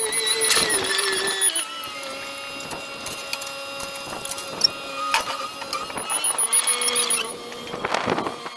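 Chain hoist lifting heavy grinder screens: a steady motor whine that shifts pitch a few times, with the chain clinking.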